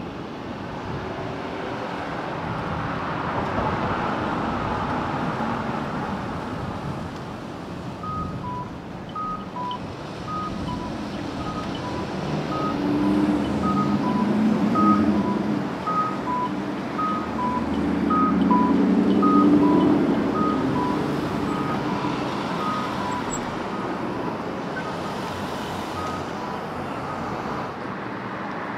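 City street traffic, with vehicles passing that swell louder twice in the middle. For about fifteen seconds in the middle, an electronic two-tone beep alternates high and low, about one pair a second.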